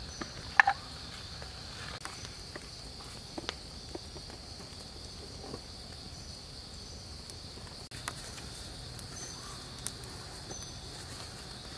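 Steady high-pitched drone of forest insects, broken by a few sharp taps from food being handled on a bed of leaves; the loudest tap comes about half a second in.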